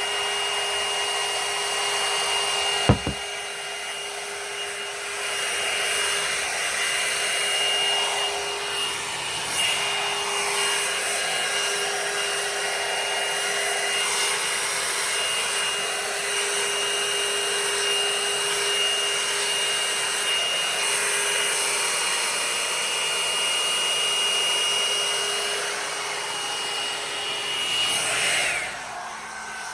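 Revlon One-Step hot-air brush dryer running steadily, a motor whine over rushing air. A sharp click about three seconds in; near the end the whine slides down in pitch and the sound gets quieter as it is switched to a lower setting.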